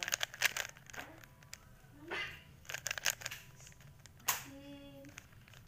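A 3x3 Rubik's cube being turned rapidly by hand, its plastic layers clicking and clacking in quick flurries. A young child's voice makes two brief sounds, one about two seconds in and one near the end.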